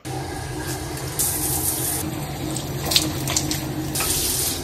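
Shower running, water spraying onto a tiled floor in a steady hiss that swells twice, with one sharp knock about three seconds in.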